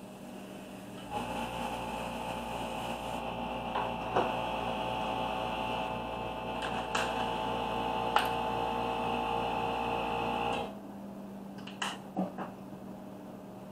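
A small electric motor starts about a second in, runs steadily with a hum and several level tones, and stops abruptly after about nine seconds. A few light clicks fall during and after it.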